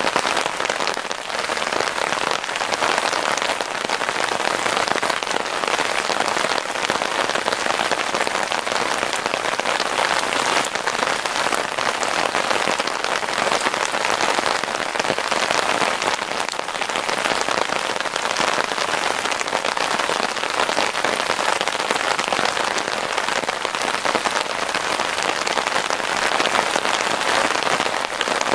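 Steady rain falling on a wet gravel forecourt and into puddles, an even, unbroken hiss.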